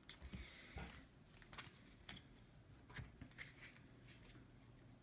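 Near silence with a few faint clicks and light rustles of tarot cards being handled, the clearest just after the start and about three seconds in.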